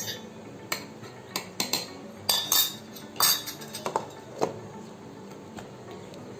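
Clinks and knocks of a mixer-grinder jar and its lid being handled and set in place, about a dozen sharp taps over the first four and a half seconds, then only faint background.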